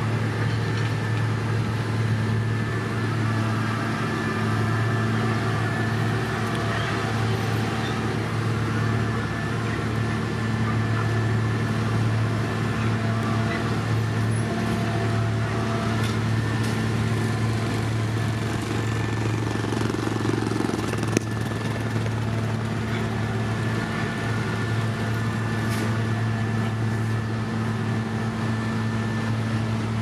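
Heavy diesel road-paving machinery running steadily: a low, even drone with no revving. There is one brief knock about two-thirds of the way through.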